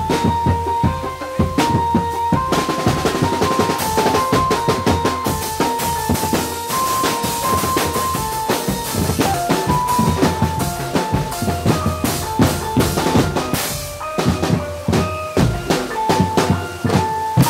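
Drum band playing live: bass drum and snare drums beating a fast, busy rhythm with rolls, under a high stepping melody line. The drumming thins to sparser hits for a couple of seconds near the end, then picks up again.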